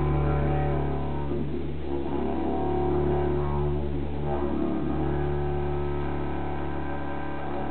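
Two didgeridoos playing together: a steady low drone with a band of overtones above it that keeps shifting.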